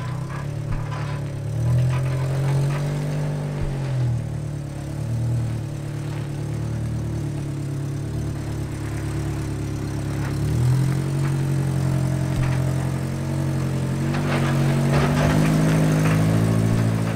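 Off-road 4x4's engine working at low speed while rock crawling, its engine speed rising and falling in short pulls. A few clicks and scrapes come about two-thirds of the way in.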